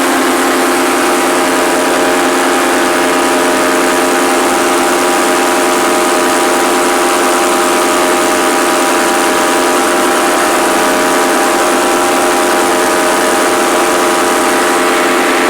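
Paramotor engine and propeller running steadily at a constant pitch, with an even rushing hiss over it.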